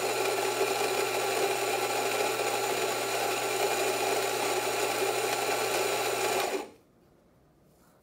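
Rancilio Rocky burr grinder's motor running as it grinds espresso beans, a steady hum that cuts off about six and a half seconds in. It is grinding at a slightly finer setting, around 9, while the grind is being dialed in.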